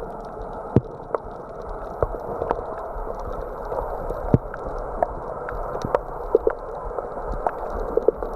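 Muffled water gurgling and sloshing, with scattered sharp clicks and ticks throughout.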